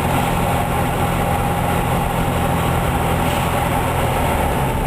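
1964 VW Beetle's air-cooled 1600 cc flat-four engine running steadily on the road, heard from inside the cabin with road noise, its exhaust leak freshly repaired.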